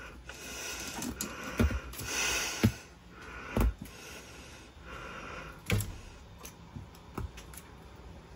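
A cat playing: scattered light knocks, taps and rustles as it leaps and bats at a dangling strap, with a rustle near the start.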